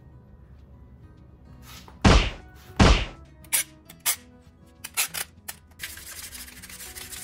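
Two loud thunks and a few sharp metallic clicks over quiet background music, then from about six seconds a steady scraping hiss of a hand file rubbing along the edge of a steel armour plate, smoothing a sharp edge.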